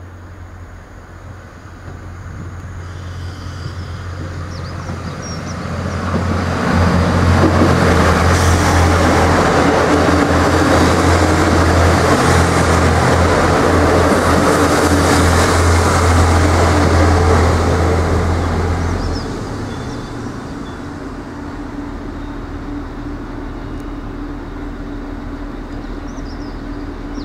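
Irish Rail 29000 class diesel multiple unit approaching and passing close by. Its diesel engines and wheels on the rails grow louder over several seconds and stay loudest for about twelve seconds. About nineteen seconds in the sound falls back to a steady lower engine hum as the train arrives at the station.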